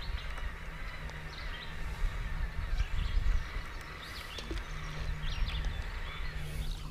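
Outdoor ambience: a low, uneven rumble of wind on the microphone, with small birds chirping in the background throughout.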